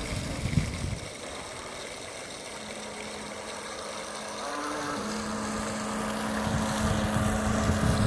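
Radio-controlled speedboat's motor running on the water: a steady drone that comes in a few seconds in, briefly rises in pitch, then holds steady and grows louder.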